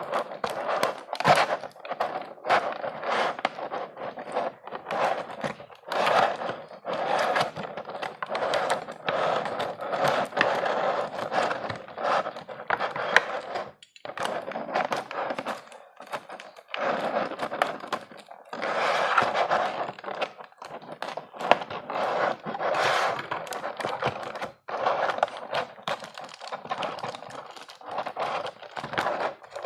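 Plastic packaging crinkling and rustling as it is handled, a continuous dense crackle with small clicks and knocks mixed in.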